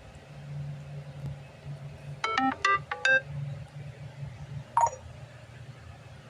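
Samsung phone notification sound: three quick pitched chime notes, then a single note about a second and a half later.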